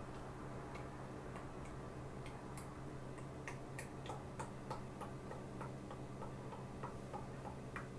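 Olive oil being poured slowly from a glass bottle into a plastic measuring jug: faint clicks about three times a second over a low steady hum.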